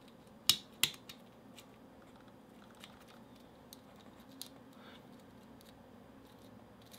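3D-printed plastic key sliding into and turning in a 3D-printed disc detainer lock core, clicking. Two sharp clicks come about half a second in, then a few faint ticks.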